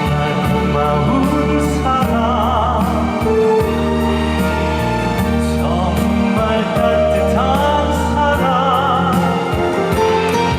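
A singer performing live with vibrato over a full instrumental backing track, at a steady loud level.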